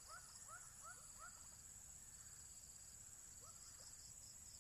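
Faint steady high-pitched insect chorus, with a run of short chirping calls from a small animal, about three a second, that stop partway through and return near the end.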